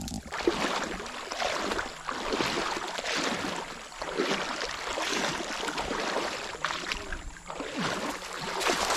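Water sloshing and swishing in uneven surges as a person wades through a shallow pond and handles a wet cast net.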